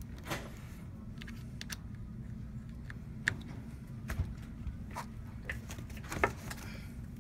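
Scattered clicks and light knocks as a RED Epic camera rig and its V-mount battery are handled and shifted on a workbench, the sharpest near the middle and near the end, over a steady low hum.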